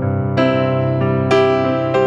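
Slow background music of sustained chords, with a new chord struck twice.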